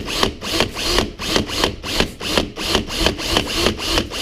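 Power drill boring a hole through the car's bumper cover, its sound pulsing about three times a second as the bit bites in and out; the bit has not reached metal.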